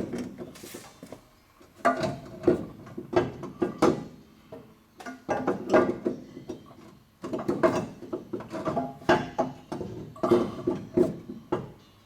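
Metal clinking and knocking of hand tools and a bolt against a Ram Air exhaust manifold as the bolt is worked into place from beneath the car, in clusters of quick knocks with short pauses between.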